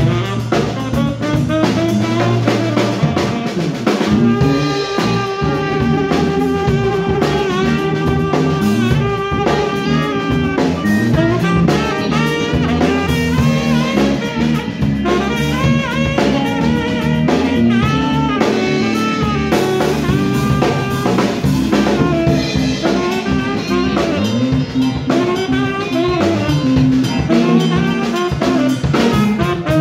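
Live band playing a funk groove: a tenor saxophone plays a continuous, bending solo line over electric bass, drum kit and electric guitar.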